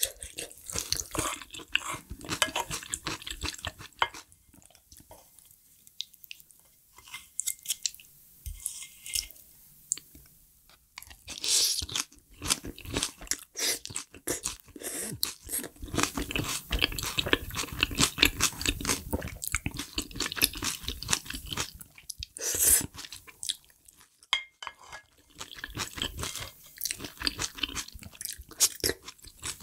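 Close-miked ASMR eating sounds: wet chewing with crunches and mouth clicks. There is a quieter lull early on, then steady chewing resumes about eleven seconds in.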